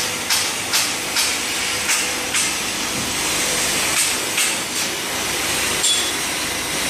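Glass V-grooving machine: a spinning grinding wheel cuts a groove into a glass sheet with a steady wet hiss. Short rasping strokes come about twice a second for the first couple of seconds, then a few more spaced out, as the glass is worked across the wheel.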